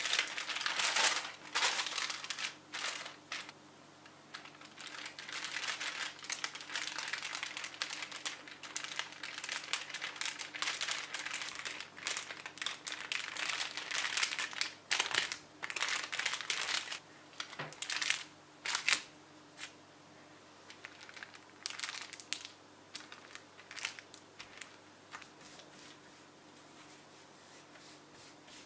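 Parchment paper crinkling and rustling in irregular bursts as butter wrapped in it is folded and rolled flat with a rolling pin, shaping the butter block for laminated Danish pastry dough. The crinkling thins out and gets quieter over the last several seconds.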